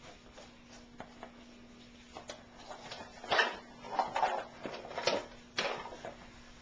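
Faint taps, then a handful of sharp knocks and clatters of objects being handled, loudest a little past halfway, over a steady low hum.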